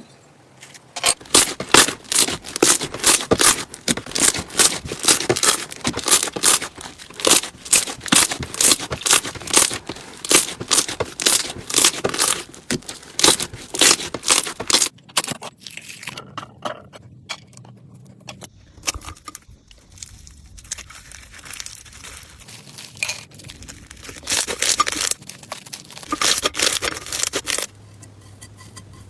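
Crunchy slime crackling and popping in quick runs as it is squeezed and pulled by hand. It goes quieter and sparser in the middle, then crackles loudly again near the end.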